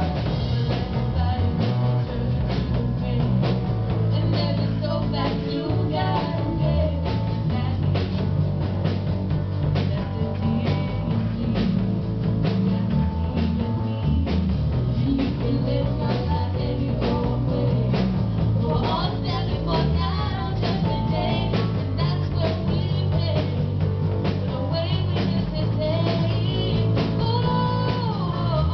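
Live Christian worship song played by a small band of drum kit, bass guitar and piano over a steady beat, with a woman singing lead into a handheld microphone.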